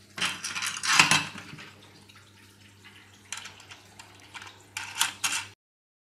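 Metal U-bolt and bracket of an antenna mount clinking and rattling as they are handled and fitted, loudest about a second in, with a few shorter rattles later before the sound cuts off abruptly.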